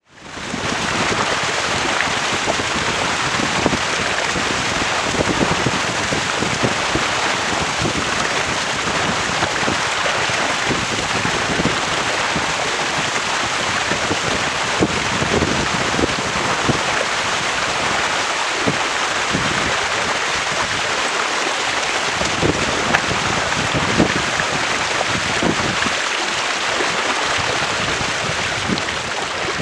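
Water rushing and spraying off the hull and float of a Weta trimaran planing at speed, mixed with wind buffeting the microphone: a steady loud hiss dotted with spatters of spray, rising in over the first second.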